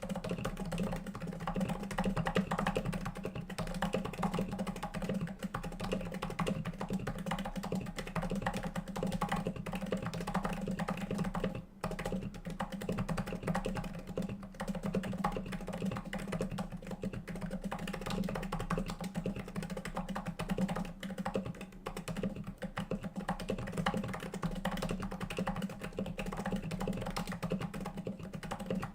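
Fast, continuous typing on a Topre-switch Cooler Master Novatouch with stock 45g domes, silenced with the dental band (orthodontic rubber band) mod, its MT3 keycaps giving a soft, deep thock. The typing pauses briefly about twelve seconds in.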